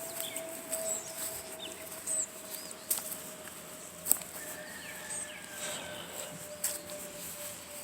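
Footsteps on a park path, a few sharp steps about a second apart, with faint bird chirps and a steady faint tone underneath.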